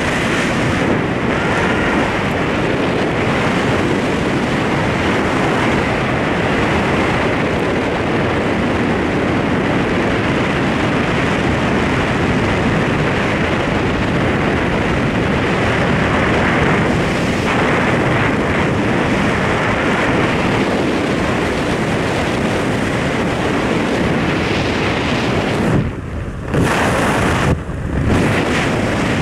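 Wind buffeting the microphone of a skydiver's helmet camera during descent under an open parachute canopy: a loud, steady rush that drops away briefly twice near the end.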